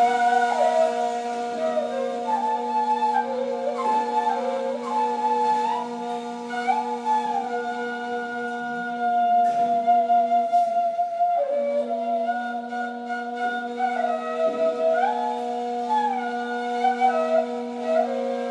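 Two neys playing together: one holds a steady low drone note while the other plays a winding improvised melody above it with slides between notes. The low note drops out for about a second a little past the middle, then returns.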